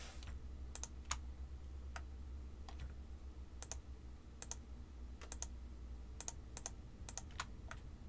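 Computer mouse and keyboard clicks: a dozen or so short, sharp clicks spread irregularly, several coming in quick pairs, over a faint steady low hum.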